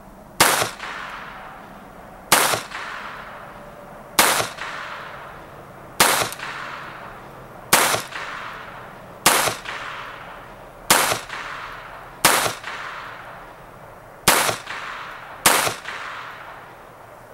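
SIG Sauer Mosquito .22 LR semi-automatic pistol firing ten single shots of CCI AR Tactical 40-grain rounds in slow, steady succession, about one every one and a half to two seconds. Each sharp report is followed by a short echoing tail.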